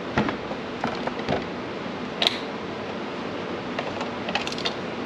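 Scattered plastic clicks and light knocks from hands handling a Greenworks Pro 60V battery chainsaw on a wooden bench, the sharpest click a little over two seconds in and a quick run of clicks near the end, over steady background noise.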